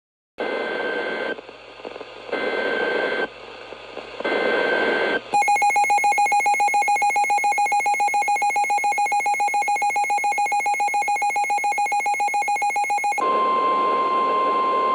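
Emergency Alert System tones: three screeching bursts of SAME header data, each about a second long with short gaps, then a loud, pulsing alert tone for about eight seconds. Near the end a steady, slightly higher single tone sounds over a hiss. Together they mark the start of an emergency alert broadcast.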